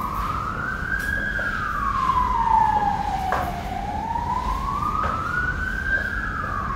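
Emergency vehicle siren in a slow wail, its pitch rising and falling about once every five seconds, with a couple of light knocks about one and three seconds in.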